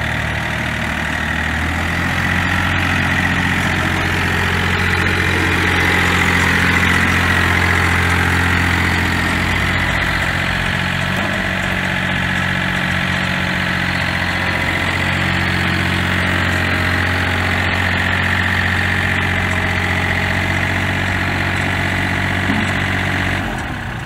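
John Deere 4300 compact tractor's three-cylinder diesel engine running steadily as the tractor drives and turns, with a steady high whine over the engine note.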